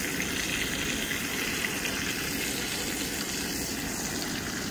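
Ribeye steak sizzling steadily in hot butter in a tilted pan while it is basted with a wooden spoon.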